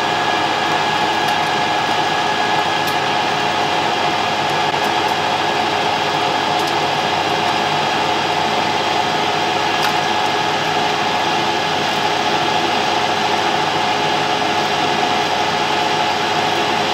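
Warco WM180 mini lathe running steadily while turning down steel bar stock: an even whine with a strong mid-pitched tone over the hiss of the cut.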